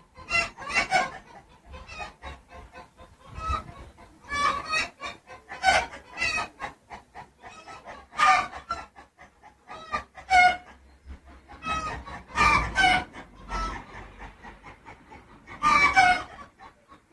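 Chickens clucking and calling in a series of short calls, with a few longer, louder calls in the second half.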